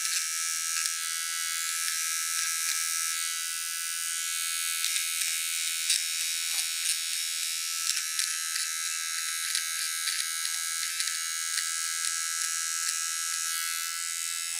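Silvercrest SMT 3 A1 precision hair trimmer running with a steady high-pitched buzz while its head is worked over the hair on the back of a hand, with faint ticks here and there.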